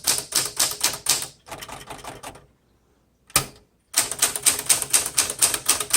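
1968 Smith-Corona Super Sterling manual typewriter being typed on, its typebars striking the platen in a rapid run of keystrokes. The typing stops for about a second and a half in the middle, broken by a single strike, then resumes at the same quick pace.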